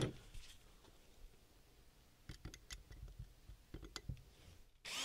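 Faint, scattered light clicks and knocks of tools being handled on a wooden workbench as a cordless drill is picked up and its bit set in place. At the very end the Ryobi 18V cordless drill starts up with a steady whir, beginning to drill a pilot hole into the broken screw.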